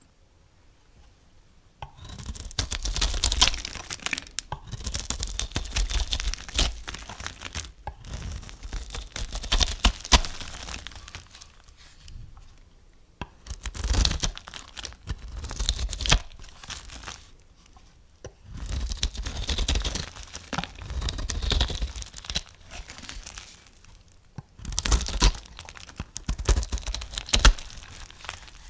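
Knife cutting through soap, in about six separate spells of cutting with short pauses between.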